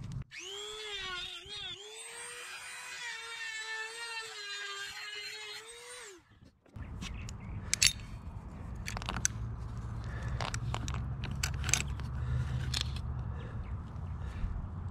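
Small high-speed power tool whining at a steady high pitch while it grinds out the hole around a broken-off screw, its pitch dropping as it winds down about six seconds in. A low rumble with scattered clicks and knocks follows.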